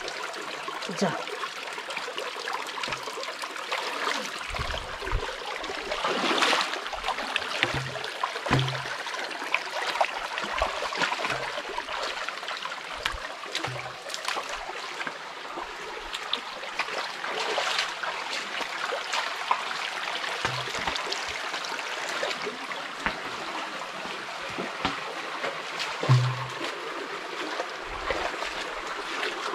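A rocky stream running and splashing steadily, with a few scattered dull low thuds.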